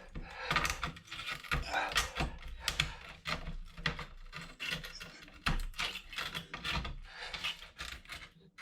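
A small hand tool scraping and prying at parts on a computer motherboard, with irregular clicks and scrapes.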